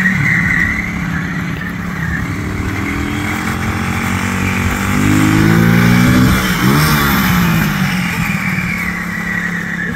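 Suzuki DR200 dirt bike's single-cylinder four-stroke engine running while it is ridden. The revs climb from about four seconds in to a peak around six seconds, then drop sharply, and the engine settles back to a steadier note.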